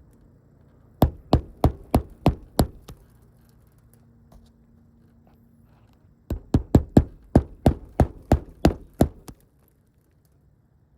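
Sharp knocks in two runs: about six evenly spaced blows, a pause of a few seconds, then about a dozen more in quicker succession.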